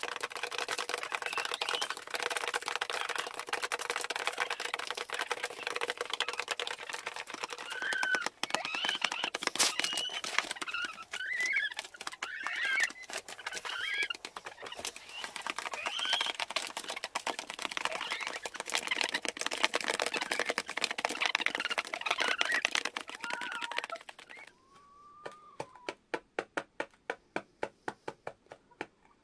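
Hens pecking grain from a feeder tray made from a car wheel cover: a dense rattle of beak taps, with short clucks now and then. Near the end the rattle thins to one hen's evenly spaced pecks, several a second, and a single cluck.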